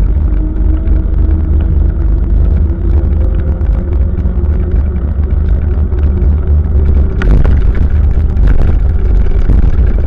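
Steady low rumble of wind and road noise on the microphone of a camera mounted on a moving bicycle, with a faint steady hum. From about seven seconds in come several sharp rattling knocks as the bike goes over bumps.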